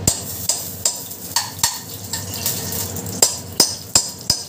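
Ghee spooned into hot oil in a pan: a high sizzle with a dozen or so sharp clicks and pops from the spoon and the spitting fat.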